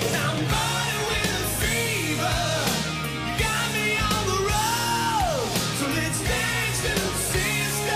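Glam metal song: a lead vocal sings over a rock band with a steady drum beat.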